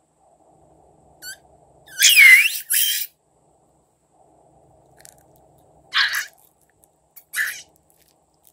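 Short high-pitched squeaks and whistles from a rubber balloon and slime being handled, four times; the longest, about two seconds in, dips and then rises in pitch.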